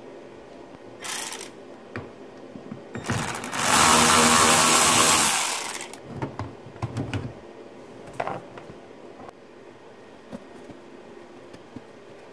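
Plastic centre-console trim around a manual gear shifter being worked loose with a plastic pry tool: clicks, knocks and rattles of plastic. A loud rustling scrape lasts about two and a half seconds in the middle.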